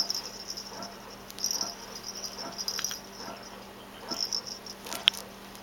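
A rhythmic pumping sound: a high hiss that swells and fades about every two and a half seconds over a steady low hum. Faint wet chewing on a toy runs through it, with a sharp click near the end.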